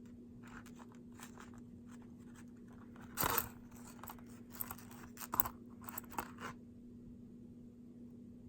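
Costume jewelry being handled and sorted: scattered small clicks, clinks and rustles, with a louder rustling clatter about three seconds in, over a steady low hum.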